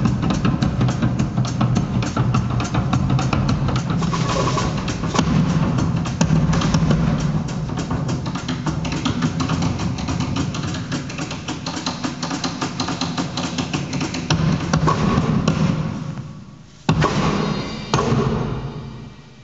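Live band music led by busy drumming on a drum kit, with an upright double bass underneath. The playing dies down about sixteen seconds in, then two last loud strikes ring out and fade near the end.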